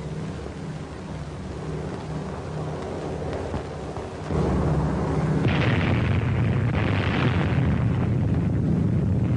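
A low, steady drone of bomber engines, then about four seconds in a sudden, deep, sustained rumble from the atomic bomb's explosion, which swells and grows brighter for a few seconds and keeps rumbling.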